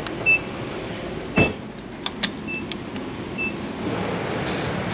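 Short high electronic beeps, five in all at uneven intervals, with a few sharp clicks and knocks over a low steady vehicle rumble.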